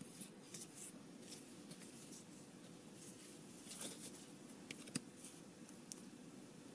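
Trading cards handled by hand: faint rustling as cards slide across one another, with a few light clicks and taps as they are set down on piles.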